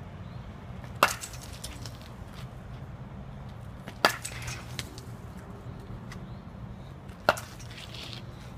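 A baseball bat hitting soft-tossed balls: three sharp cracks about three seconds apart.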